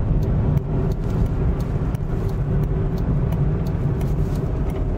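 A Citroën small car driving at steady speed, heard from inside the cabin: an even low engine and road rumble with a faint steady hum.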